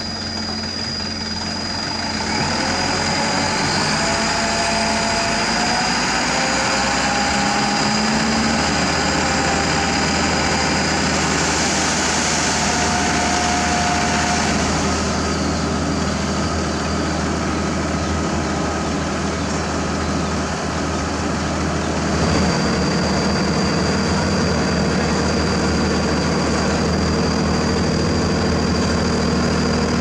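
Diesel engines of a dump truck and an asphalt paver running steadily. The truck's engine picks up about two seconds in as it drives the hydraulic hoist that tips its bed of asphalt into the paver's hopper.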